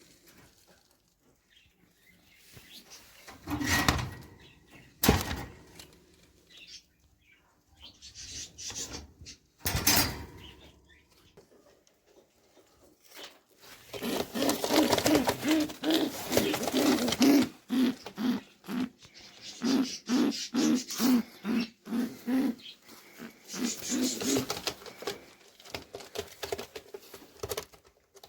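Caged birds in a shop: pigeons cooing in quick repeated pulses under a chatter of small birds, with a few sharp knocks in the first ten seconds.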